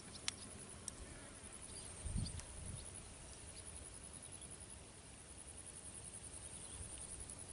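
Quiet outdoor ambience with faint, steady, high insect chirring, a couple of light clicks in the first second, and a brief low thump about two seconds in.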